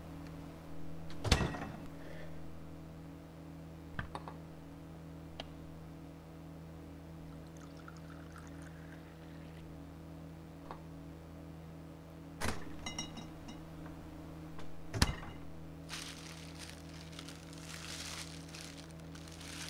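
A steady low hum with a few sharp knocks, four in all, spread through; near the end a hissing rush lasts about three seconds.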